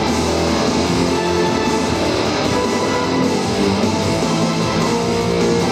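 Loud, steady rock music with guitar playing throughout.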